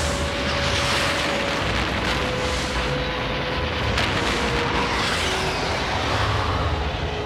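Sound-designed air-combat effects: a jet whooshing past droning bomber engines, with rumbling booms, under a held musical tone. A falling whoosh comes about four seconds in.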